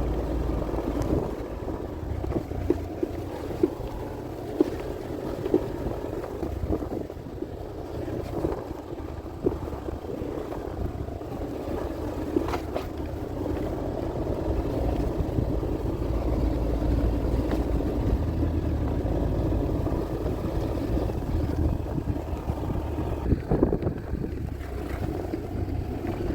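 Motor scooter engine running steadily while riding along, with wind rumbling on the microphone and a few small knocks.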